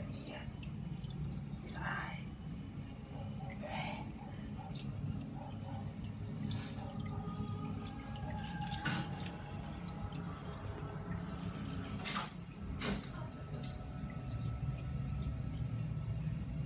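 Aquarium filter running: a steady low hum with water trickling and dripping into the tank, and a few sharp clicks in the second half.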